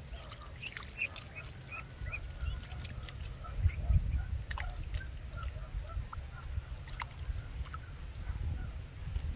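Duckling peeping in short, repeated high chirps, with a few sharp clicks and a low rumble underneath.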